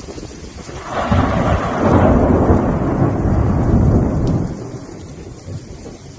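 A loud rumble of thunder that breaks in about a second in, holds for three to four seconds and then fades away.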